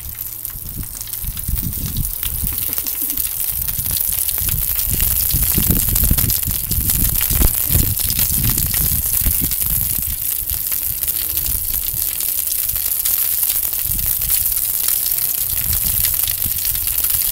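Sausages sizzling and crackling on a disposable foil-tray charcoal barbecue, a dense hiss full of tiny pops. Under it runs a gusty low rumble of wind on the microphone.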